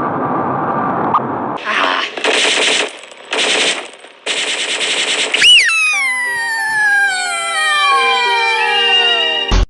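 Music gives way to several short blocks of rapid rattling, like a burst of machine-gun fire, followed by a long whistle-like tone falling steadily in pitch over held notes, ending in a low thump.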